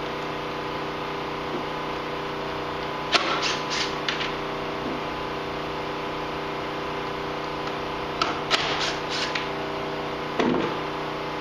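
Short bursts of sharp clicking and clattering from a cordless driver and Torx bolts being worked out of a snowmobile's front plastic, one cluster about three seconds in and another around eight seconds, with a single knock near the end. A steady electrical hum runs underneath.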